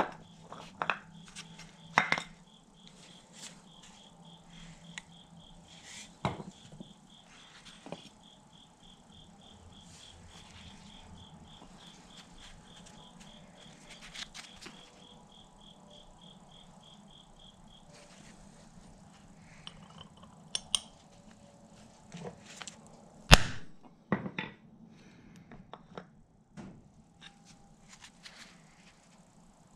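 Steel stamps and a hammer being handled: scattered light clicks and knocks, with one sharp, hard strike about two-thirds of the way through. A high, evenly pulsing chirp runs under the first half, over a low steady hum.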